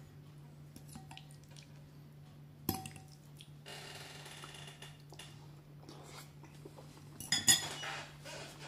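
Metal fork clinking against a ceramic bowl of spaghetti in tomato sauce: a single sharp tap a little under three seconds in, then a louder cluster of clinks near the end as the fork is set down in the bowl.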